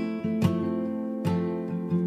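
Background music of a strummed acoustic guitar, with chords struck about every second in a steady rhythm.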